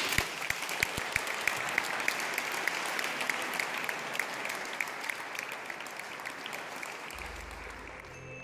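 Audience applauding, a dense patter of clapping that slowly dies down toward the end.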